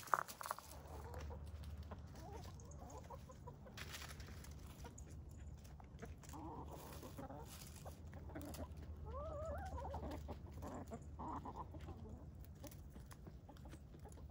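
Backyard chickens clucking softly and intermittently as they forage, with a cluster of rising, wavering calls about two-thirds of the way through. A sharp click comes right at the start, and a low steady hum runs underneath.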